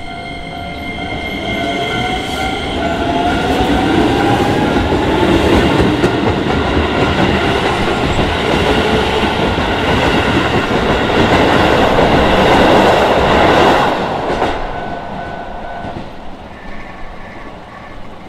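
Keisei Main Line electric train passing over a level crossing: a rising motor whine in the first few seconds, then loud running noise from the wheels on the rails that builds, holds for about ten seconds and fades. The crossing's warning bell sounds beneath it and stops near the end.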